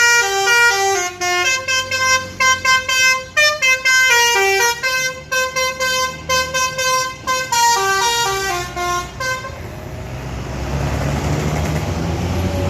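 Telolet basuri multi-tone musical bus horn playing a loud tune of stepped notes for about nine seconds. Then it stops and the bus's engine noise swells.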